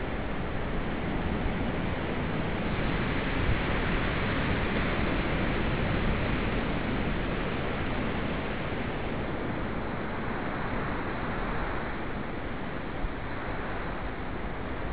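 Surf washing over a rocky shore: a steady rushing noise that swells for a few seconds near the middle and then eases.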